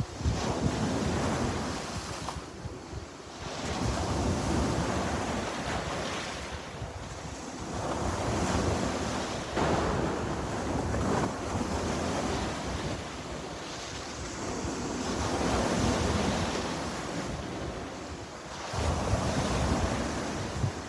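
Sea surf: waves break and wash in, swelling and falling back every few seconds, with wind buffeting the microphone as a fluttering rumble underneath.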